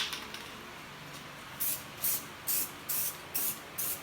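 Aerosol spray paint can sprayed in short, quick bursts, about two a second, starting a little over a second in.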